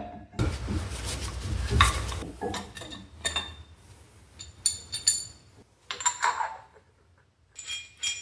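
Metal tool parts clattering and clinking as they are handled: a stretch of rummaging and knocking, then a series of separate sharp metallic clinks.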